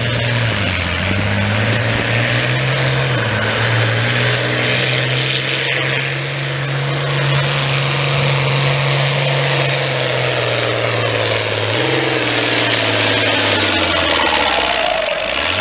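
International farm tractor's diesel engine running under full load as it drags a weight sled, its note steady with a few short dips in pitch, then falling away near the end as the pull finishes.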